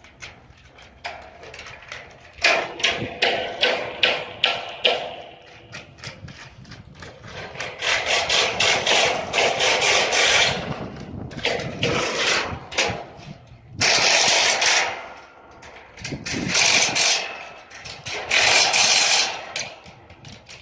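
Hammer blows on wood in a quick run, about three a second, then several noisy bursts of a power tool lasting one to three seconds each.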